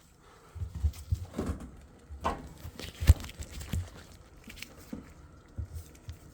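Irregular knocks, thuds and rubbing as the rubber door boot gasket of an LG front-load washer and its spring clamp are worked loose by hand, with a sharp knock about three seconds in.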